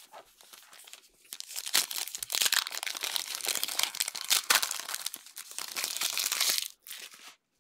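A trading-card pack's wrapper crinkling and tearing as it is ripped open by hand: a dense crackle that starts about a second in and stops near the end.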